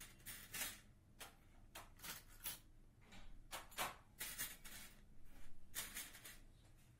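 Bangles clinking against one another and against a bowl as they are picked out one at a time: an irregular run of short, light, high clinks.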